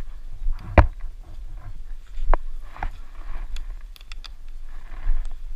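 Paintball markers firing: a few scattered sharp pops, the loudest about a second in and two more between two and three seconds in, then a quick run of fainter clicks near four seconds, over a steady low rumble.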